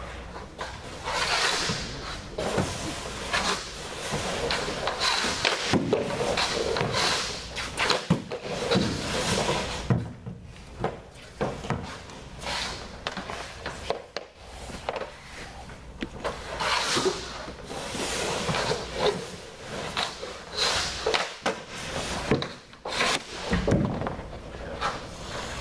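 Hockey goaltending drill: skate blades scraping across the ice surface and pucks shot off sticks, knocking against the goalie's pads, stick and the boards. It comes as a string of sharp knocks between scraping sweeps, loudest about eight seconds in.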